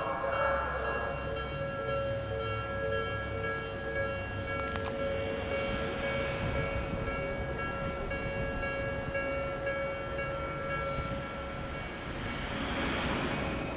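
Japanese level-crossing warning bell ringing steadily while an Odakyu Odawara Line electric train runs past on the rails. The bell's tones fade about eleven seconds in, and a broader rushing hiss of the train rises near the end.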